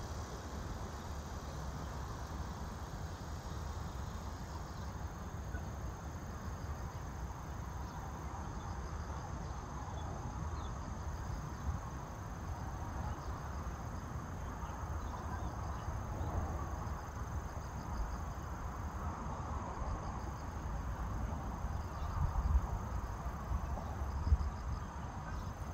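Insects chirping with a high, thin, steady trill, over a low rumble that swells near the end.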